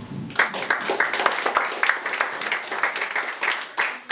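Audience applauding, beginning about half a second in and thinning to a few separate claps near the end.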